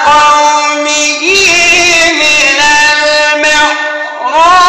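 A man reciting the Quran in a loud, high melodic chant, holding long notes with wavering ornamental turns; the voice dips briefly about four seconds in, then rises into a new note.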